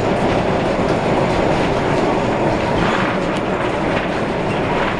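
Streetcar #553 rolling along its rails, heard from inside the car: a steady rumble of wheels and rattling car body, with a few faint clicks of the wheels over the track.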